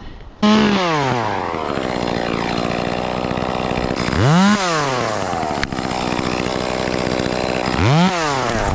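Chainsaw starting up: it catches about half a second in, its revs drop to a steady idle, then it is blipped twice, a quick rise and fall in pitch about four and eight seconds in.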